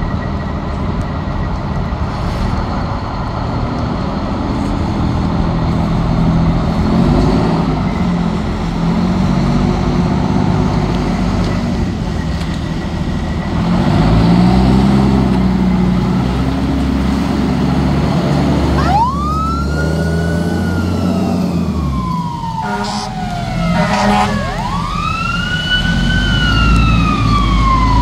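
Fire truck's diesel engine revving as it pulls out onto a wet road. About two-thirds through its siren starts, twice rising quickly and falling slowly in a long wail, with two short blasts near the low point between the wails.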